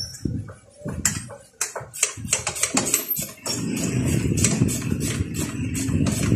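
Small metal parts and tools clicking and tapping in quick, irregular strokes while being fitted by hand on a Honda Wave 125 engine's cylinder head. A steady low background sound comes in about halfway through.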